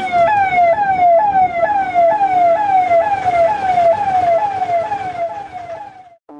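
Rapid yelping siren: a falling wail that repeats about twice a second, fading out near the end.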